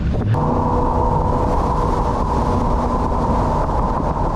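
Jet boat engine and water-jet drive running steadily under way: a loud, even drone with a few steady tones over a rush of noise.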